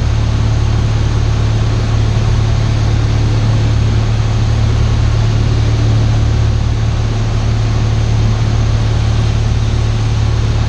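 Cessna 172 Skyhawk's piston engine and propeller droning steadily in flight, heard inside the cabin as an even low hum under a wash of noise.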